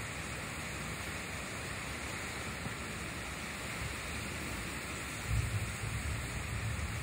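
Heavy wind-driven rain falling in a severe storm, a steady hiss. About five seconds in, a low rumble joins it and carries on.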